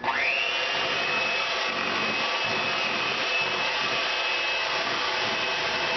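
An electric mixer switches on and spins up quickly, then runs at a steady speed with a high, even whine, mixing brownie batter.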